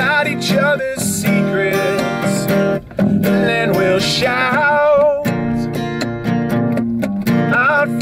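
A band playing a song: strummed acoustic guitar and electric bass guitar with a singing voice, breaking off briefly about three seconds in.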